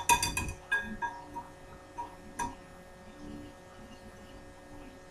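A whisk clinking against a glass mixing bowl as grated butter is worked into flour: a quick run of clinks in the first half-second, then single taps spread over the next two seconds.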